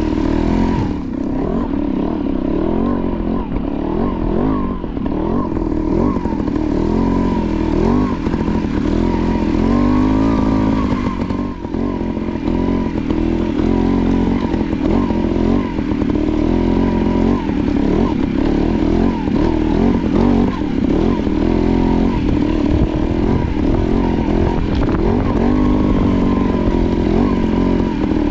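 Trials motorcycle engine at low speed, the throttle opened and closed again and again so its pitch keeps rising and falling, as the bike picks its way over loose rocks.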